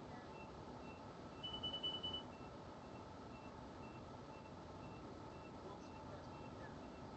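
Electronic beeping: a faint high-pitched beep about twice a second throughout, with a louder run of rapid high beeps lasting under a second about one and a half seconds in.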